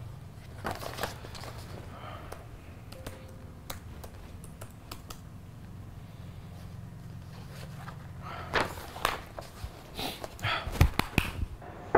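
Soft rustling of paper sheets and scattered clicks of laptop keys, with a few louder, sharper taps near the end.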